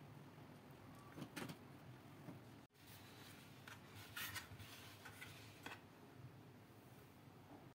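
Near silence: room tone with a few faint, brief scrapes and rubs.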